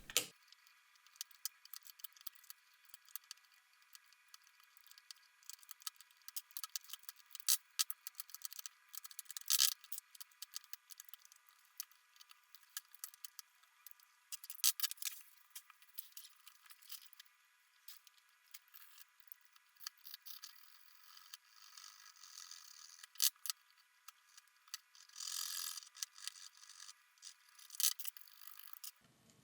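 Sped-up, thin-sounding scraping and clicking of a small hand tool picking shards of cracked screen glass and old adhesive out of a phone's plastic frame, in scattered short strokes with a few sharper clicks.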